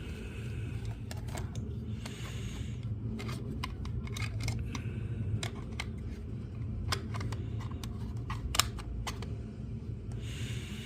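Scattered sharp clicks and light rustling from handling small plastic RC crawler parts, with one louder click about eight and a half seconds in, over a steady low hum.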